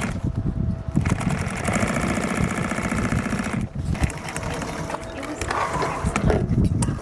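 Industrial sewing machine stitching binding onto the edge of a bag, running fast in two runs with a brief stop about halfway through.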